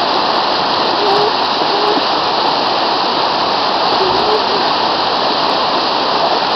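Fast mountain river rushing steadily, a loud, even wash of water noise.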